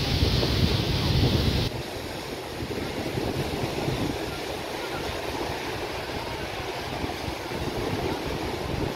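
Waves washing on a sandy beach, with wind buffeting the microphone at first; the wind rumble cuts off sharply about two seconds in.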